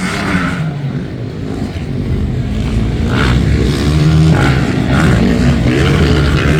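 MX1-class motocross bikes running on the track, their engines revving up and down as riders work the throttle.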